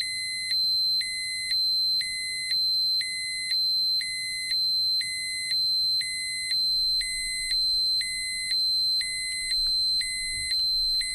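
Electronic dosimeter alarm: a continuous high electronic tone with a lower tone switching in and out, so the alarm pulses about once a second. It is the warning that a set radiation dose or dose rate has been exceeded.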